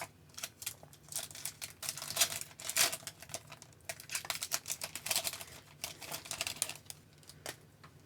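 A trading card pack being opened and its cards handled: a dense run of quick crackles and clicks from the wrapper and the cards, from about half a second in until near the end.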